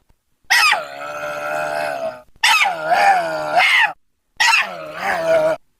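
Three drawn-out vocal cries, each lasting well over a second with a wavering pitch, played one after another with abrupt silences between them.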